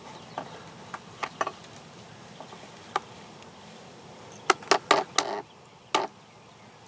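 Scattered sharp clicks and taps over a faint steady hiss, with a quick run of louder clicks about four and a half to six seconds in.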